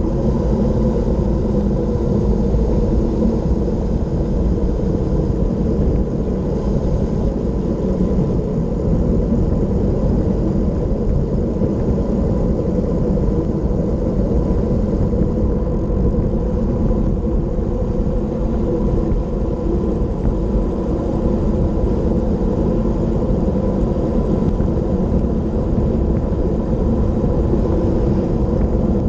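Steady low rush of wind buffeting the microphone of a bicycle-mounted camera during a fast road-bike descent.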